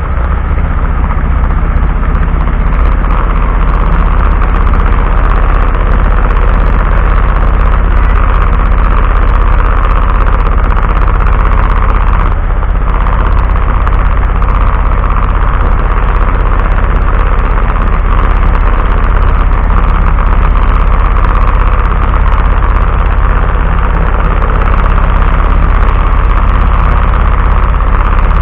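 A vehicle driving in very heavy rain, picked up by its front dashcam: a loud, steady running noise with a strong low rumble and no breaks.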